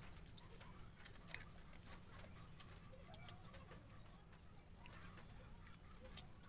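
Near silence: faint scattered clicks from fried chicken bones being picked apart by hand and chewed, with a few faint bird calls in the background.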